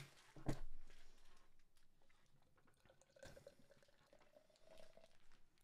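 Coconut Tonka bean milk stout poured into a glass, faint, with a slowly rising tone as the glass fills from about three seconds in. A short click sounds about half a second in.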